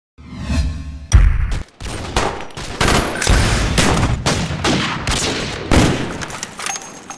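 Repeated bursts of rapid gunfire, volley after volley.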